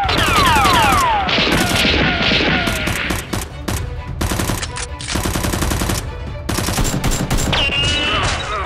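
Rapid automatic gunfire sound effects in quick bursts, over background music, with several falling whistle-like tones in the first second or two.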